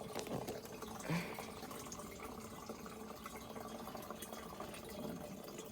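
Gasoline trickling steadily from a disconnected riding-mower fuel hose into a gas can as the tank drains.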